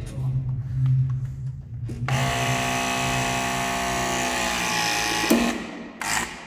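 Battery-powered hydraulic crimping tool running for about three seconds as it presses a lug onto a power cable, its motor holding a steady whine and ending in a sharp click.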